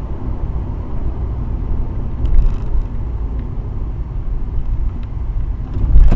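Steady low rumble of a car on the move: road and engine noise, with a few faint ticks about two and a half seconds in.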